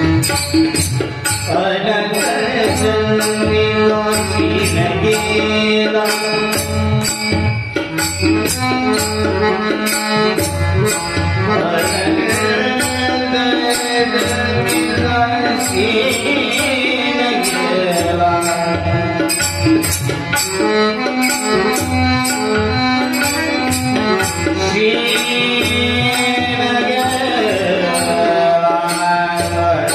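Marathi devotional bhajan: a man singing over held accompanying notes, with a drum and a steady bright percussive stroke about twice a second.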